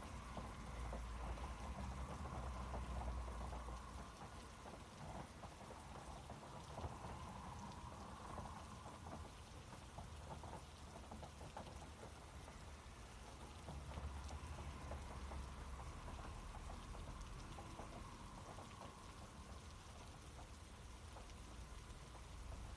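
Steady rain pattering with many fine drop ticks, over a low rumble that swells about two seconds in and again around fourteen seconds in.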